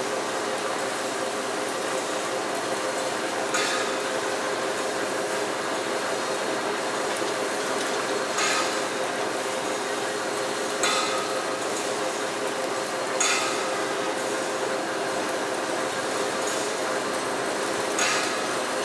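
Factory machinery in a steel-wire workshop running with a steady hum, broken about five times by a sharp metallic clank that rings briefly, at irregular gaps of a few seconds.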